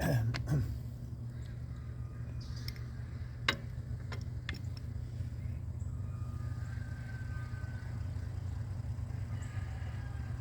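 Diesel engine idling steadily, the low drone of the Kubota KX033-4 excavator, during greasing. Right at the start come two short squeals that drop quickly in pitch, and about three and a half seconds in a single sharp click.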